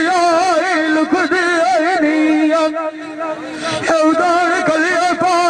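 A man singing a Punjabi dhola (folk song) into a microphone, in a high, ornamented voice with wavering turns and a long held note in the middle.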